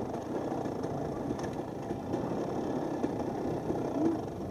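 Two-stroke 250 cc Husqvarna dirt bike engine running steadily at low revs.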